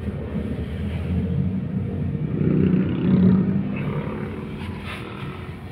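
Car engine running and the car moving off, heard from inside the cabin as a steady low rumble that swells about three seconds in and then eases.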